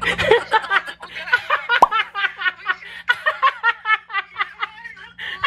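Women laughing hard over a phone call, in quick repeated bursts of giggling.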